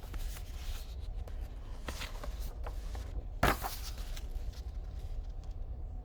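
Paper rustling as a picture book's page is handled and turned, with one short, louder rustle about three and a half seconds in, over a low steady hum.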